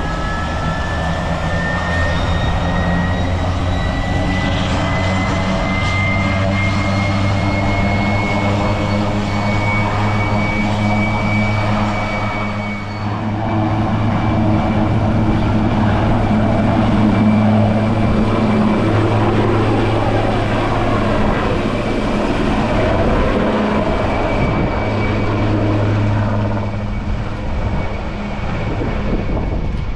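RAF Puma helicopter's twin turboshaft engines and rotors running, loud and steady. A high turbine whine rises in pitch over the first dozen seconds, then holds.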